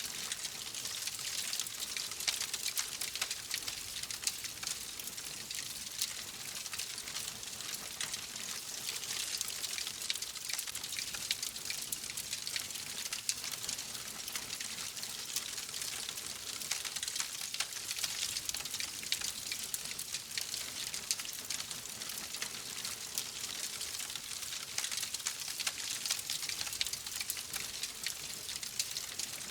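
Wood fire crackling steadily: a dense run of small pops and snaps over a soft hiss.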